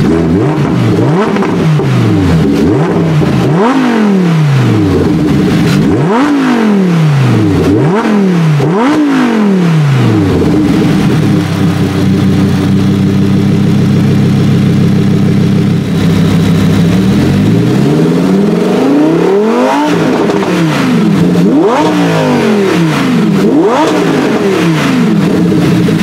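2018 Lamborghini Huracán Performante's naturally aspirated 5.2-litre V10 blipped up from idle several times in quick succession, each rev rising sharply and falling straight back. It then settles to a steady idle for several seconds before being revved again a few more times.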